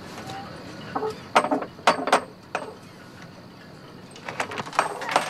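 Knocking on a wooden door: a few sharp knocks between about one and two and a half seconds in. Near the end come a run of clicks and rattles as the door is unlatched and opened.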